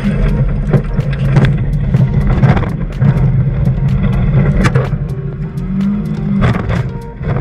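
Car engine running steadily, heard from inside the cabin, with repeated sharp knocks and rattles as the car bounces over rough ground.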